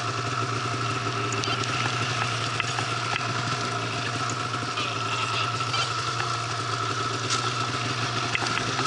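Arctic Cat snowmobile engine running steadily, with an even drone and a constant thin high whine, as the sled rides down through deep powder.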